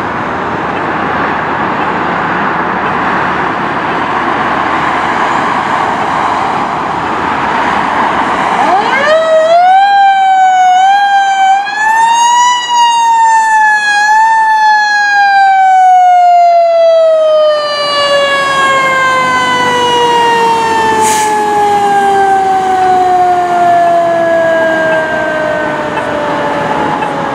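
Fire engine siren: after several seconds of loud rushing noise, the siren winds up quickly about nine seconds in, wavers up and down in pitch for a few seconds, then falls slowly and steadily in pitch as the pumper moves off.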